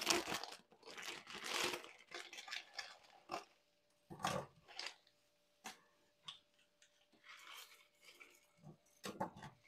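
Instant ramen packets being torn open and the dry noodle blocks set into a pot: a plastic wrapper rustling with a run of short crackles, and a few dull knocks.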